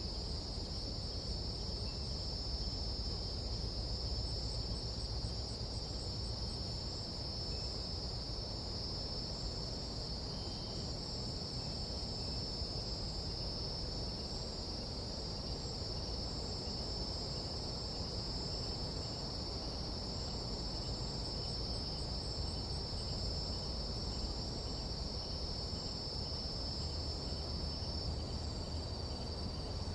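Night insect chorus of a tropical jungle: a steady high-pitched trill that does not let up. Fainter insects chirp over it, one pulsing about twice a second in the second half. Underneath is a low, steady rush.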